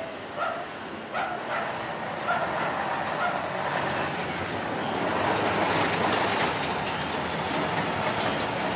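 A dog barks several times in the first three seconds. Then a MAN truck tractor unit's diesel engine runs as it drives off along the street, the noise swelling about halfway through.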